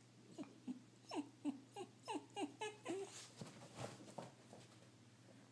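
Dog whining in a quick run of short whines, each falling in pitch, followed by a second or so of scuffling as the dog moves about.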